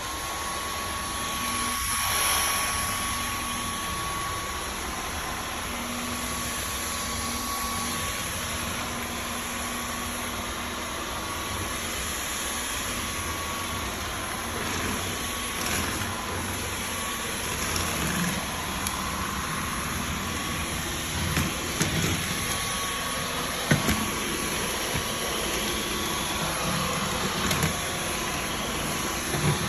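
Dyson V15 Detect cordless stick vacuum switching on and running steadily with its hard-floor cleaner head, a constant whine over the suction noise. A few brief clicks come through along the way.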